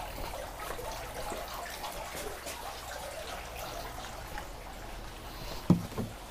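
Hot oil bubbling and crackling steadily around a whole turkey deep-frying in a stainless steel pot. Two short knocks near the end.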